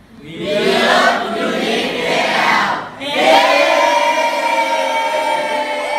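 A class of teenage students shouting together in unison, then a long drawn-out group cheer held on one note.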